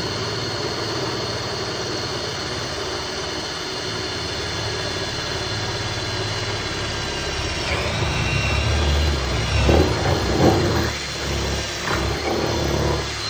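Cordless drill running steadily as its bit bores through a car's boot-lid panel. About eight seconds in the motor's pitch dips and the sound turns rough and uneven, with louder surges, as the bit bites and loads up.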